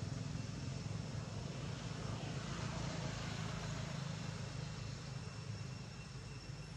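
Low, steady drone of a distant engine, slowly fading away.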